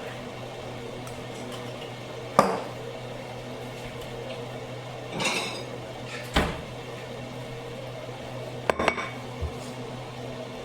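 Kitchenware clattering: dishes and utensils are knocked and set down several times. There is a sharp clank about two seconds in, a rattling scrape around five seconds, another knock, then a quick cluster of clicks and a soft thump near the end, all over a steady low hum.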